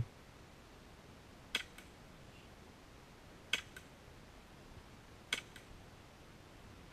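Airsoft pistol firing three single shots about two seconds apart, each sharp crack followed a moment later by a fainter click.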